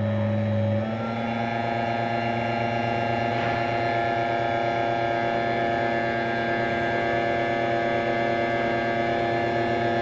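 Electric hydraulic pump of a Bonny Doon press running with a steady hum while the ram drives the punch through a deep-drawing die. The tone shifts about a second in, then holds.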